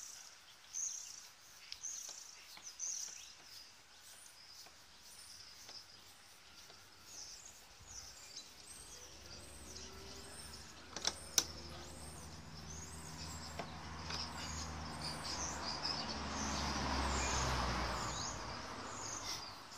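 Small birds chirping repeatedly, with a single sharp click about eleven seconds in. A low rumble builds in the second half, is loudest a couple of seconds before the end, then fades.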